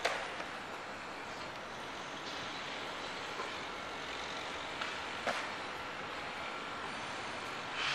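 Steady hum of city road traffic, with three brief sharp clicks: one at the start, one about five seconds in, and one at the end.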